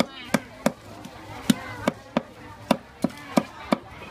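Knife blade knocking on a wooden chopping board while a whole fish is cleaned: about nine sharp strokes at an uneven pace.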